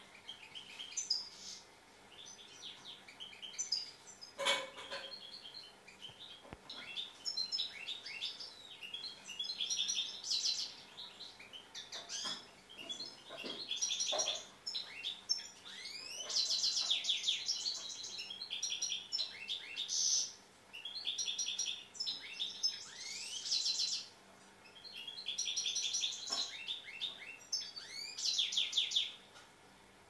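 European goldfinch singing: phrase after phrase of rapid, high twittering and trilling notes with short pauses between, plus a single brief knock about four seconds in.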